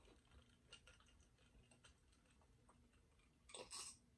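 Quiet mouth sounds: faint scattered clicks, then a brief sip from a stemmed glass of margarita over ice, the loudest sound, about three and a half seconds in.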